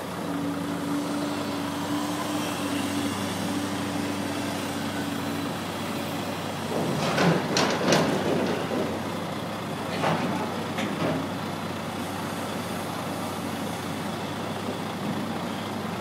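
Heavy diesel engine running steadily, with a clatter of pulpwood logs dropped from a grapple into a ship's steel hold, loudest about seven to eight seconds in and again about ten seconds in.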